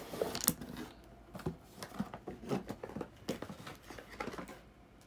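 Hands handling doll packaging: scattered light taps, clicks and rustles, loudest in the first half-second or so.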